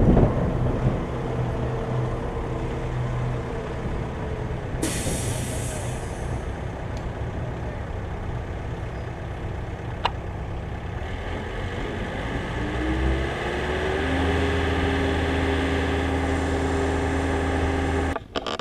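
Air Tractor AT-502XP crop-duster's turboprop engine droning steadily as the plane flies away after a low pass. Its pitch rises about two-thirds of the way in and then holds, and the sound cuts off abruptly near the end.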